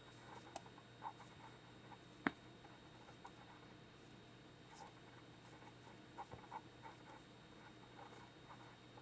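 Faint scattered taps and rustles of kitchen handling at a counter, with one sharper click about two seconds in, over a low steady hum.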